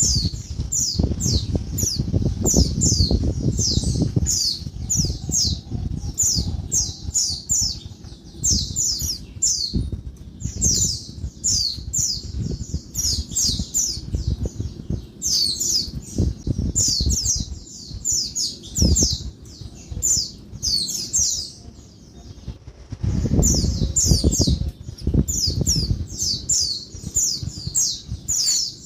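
Female white-eye (pleci) giving a fast, noisy run of sharp, high, down-slurred chirps, several a second, with a short break about two-thirds through. Low rumbling and thumps run underneath, heaviest near the start and just after the break.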